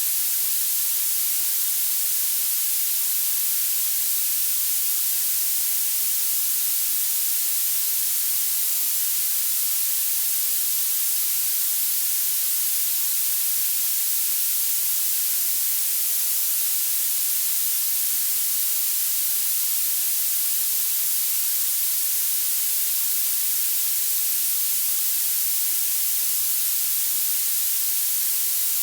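Generated violet noise: a steady, high-pitched hiss with its energy rising toward the highest pitches and almost no low end, unchanging throughout.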